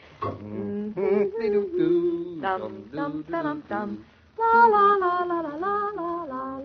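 A woman humming and singing a wordless tune, joined by a lower man's voice for the first few seconds; a longer held phrase starts about halfway through.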